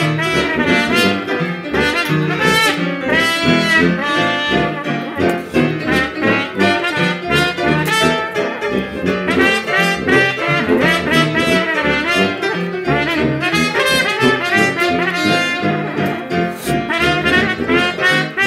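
Traditional jazz ensemble of trumpet, piano and tuba playing an instrumental chorus: the trumpet carries the melody over piano chords and a tuba bass line.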